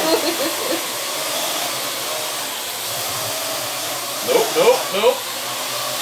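Parrot AR.Drone quadcopter hovering and manoeuvring, its four electric rotors giving a steady high whir.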